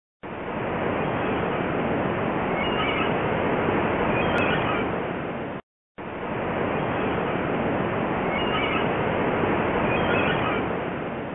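Steady outdoor background noise, a dense hiss and rumble with a few faint high chirps. It cuts out for a moment about six seconds in, then returns unchanged.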